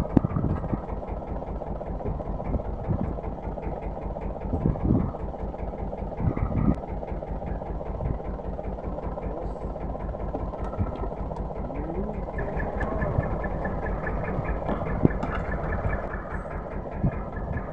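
A small boat engine idling steadily, with a few sharp knocks over it.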